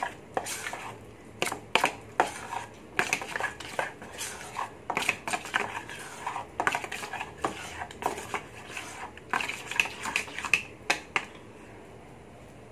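Metal spoon stirring thick flour batter in a stainless steel bowl, clinking and scraping against the bowl in quick, irregular strokes. The stirring stops about a second before the end.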